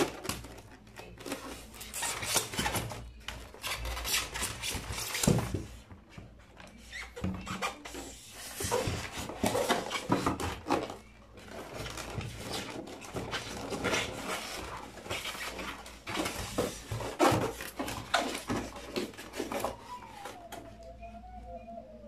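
Irregular rubbing, scraping and clicking of a plastic RC toy excavator being lifted out of its polystyrene foam packaging and handled on a table.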